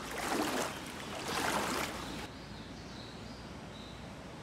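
Two splashing steps through shallow floodwater on a muddy path. About two seconds in the sound cuts off suddenly to a faint steady hiss with a few faint high chirps.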